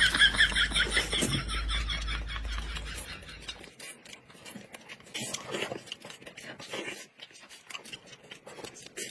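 Close-miked eating sounds: wet chewing and lip smacks as braised chicken drumstick and fruit are bitten and chewed, in small irregular clicks. A short laugh trails off at the very start, and a low hum stops about four seconds in.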